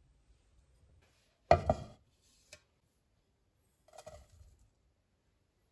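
A single sharp knock about one and a half seconds in, then about four seconds in a brief soft rustle of ground nut flour pouring from a bowl into a ceramic pot.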